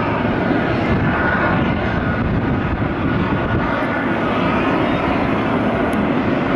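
Boeing 777-300ER's twin GE90-115B turbofan engines running at taxi power: a steady jet rumble with a faint high whine.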